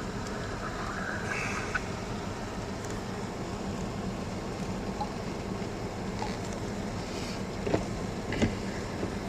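Steady car engine and road noise heard from inside the vehicle, with two short sharp knocks about three quarters of the way through.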